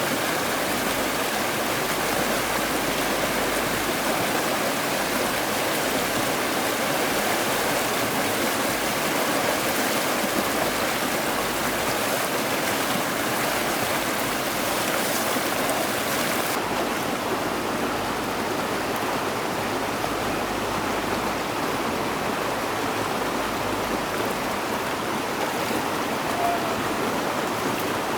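Steady rush of flowing water, an even hiss with no distinct events; the highest part of the hiss drops away suddenly about sixteen seconds in.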